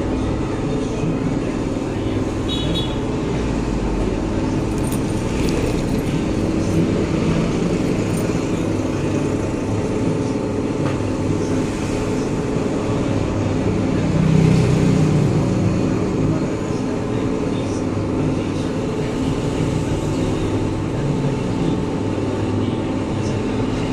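Metal lathe running steadily, its chuck spinning a cylindrical gate-wheel roller: an even machine hum with a constant whine from the drive.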